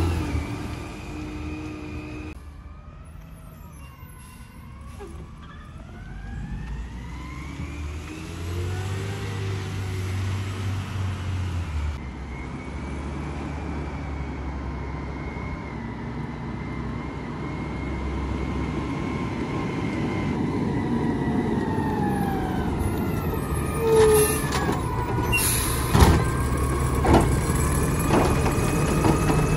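Natural-gas Mack garbage truck running through the street, its engine and driveline whine gliding up and down in pitch as it pulls away and then comes back. Near the end a few sharp clunks and hisses come as the automated side-loader arm grabs and lifts a trash cart.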